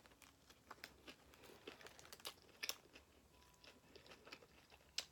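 Faint close-up chewing of a Subway BMT sandwich (ham, salami and pepperoni): small wet mouth clicks and crackles, a few sharper ones now and then.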